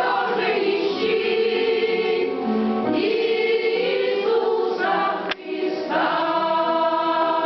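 A choir singing a hymn in several-part harmony, with a short click and a brief drop in level about five seconds in.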